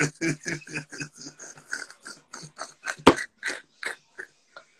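A man laughing hard in rapid, breathy bursts of about five a second that taper off toward the end, with one sharp knock about three seconds in.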